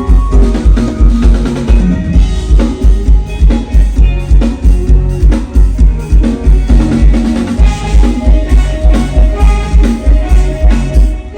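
Instrumental lam phloen band music: a steady, loud bass-drum beat at about two to three strokes a second, with drums and sustained melody instruments over it.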